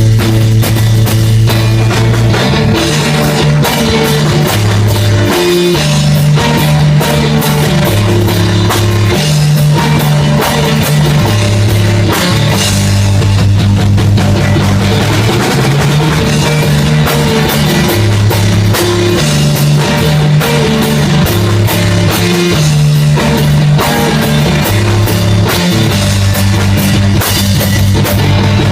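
Loud rock music: drum kit, guitar and a bass line stepping through a repeating pattern of notes.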